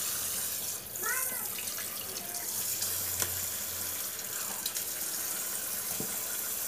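Kitchen tap running in a steady stream into a stainless steel sink, splashing over fish in a plastic basket as hands rinse them.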